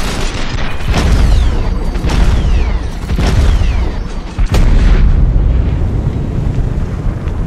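M134 minigun gunfire slowed down to match the slow-motion picture: a string of deep, heavy booms about a second apart, each trailed by a falling whistle. The last and loudest comes about four and a half seconds in, then dies away.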